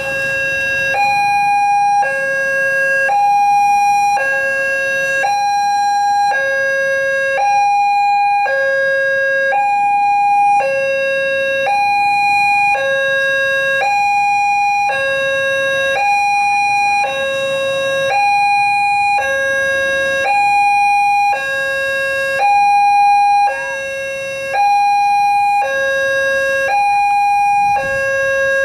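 Railway level crossing warning siren sounding a two-tone electronic alarm, alternating between a lower and a higher tone about once a second. It is the signal that the crossing is closed for an approaching train.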